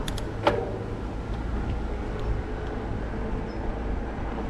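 Riding noise from a bicycle on a trail heard on a helmet- or bike-mounted action camera: a steady low rumble of wind on the microphone and rolling tyres, with a couple of sharp clicks just after the start.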